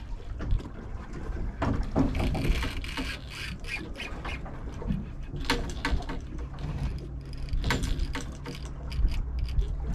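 Fishing rod and reel under heavy load while a big bluefin tuna is fought: irregular clicking and squeaking from the reel and line, in clusters about two, five and a half and seven and a half seconds in. Underneath is the low, steady hum of the boat at rest on the water.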